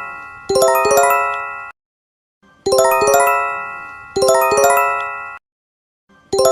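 Electronic alert chime: a quick run of bell-like notes that ring and die away, sounded in pairs of phrases with a short silence between each pair.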